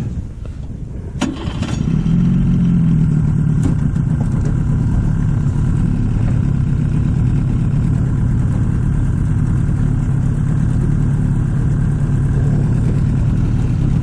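A 30-horsepower boat outboard motor starts after a couple of clicks about two seconds in, then runs steadily.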